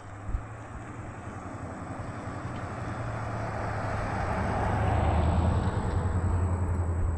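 A car passing on the road, its tyre and engine noise building to a peak about five seconds in and then starting to fade, over the steady low hum of an idling ATV engine. A single short knock sounds near the start.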